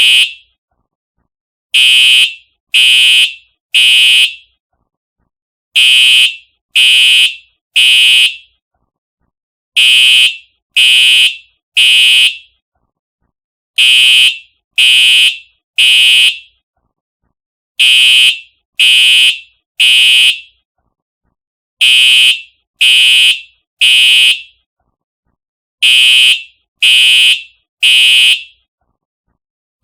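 Simplex TrueAlert fire alarm horn sounding in the temporal-three evacuation pattern: three loud, high-pitched half-second blasts about a second apart, then a pause, repeating every four seconds.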